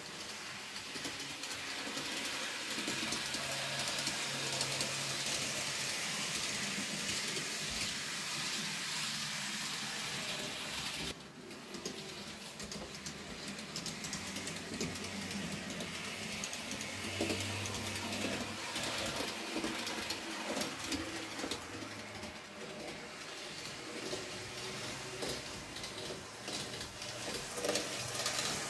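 N-scale model train running along the track: a steady rolling hiss of the wheels on the rails with a low motor hum. The sound drops sharply and briefly about eleven seconds in, then carries on.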